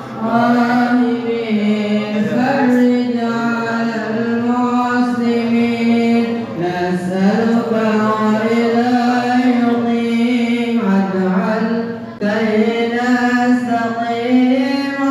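A man's solo voice in melismatic Islamic chant: long, ornamented held phrases, with pauses for breath about six seconds and about twelve seconds in.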